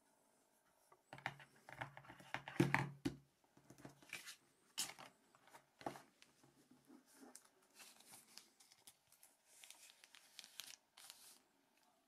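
Plastic wrapping and box packaging crinkling and rustling as a phone is lifted out and handled, with scattered sharp clicks and knocks. It starts about a second in, is loudest a second or two later, then thins to lighter crinkles.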